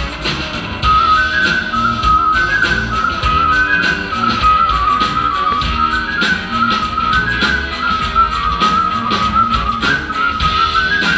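Live band playing an instrumental passage: a high, whistle-like melody of quick stepped notes over lower held notes and a steady beat.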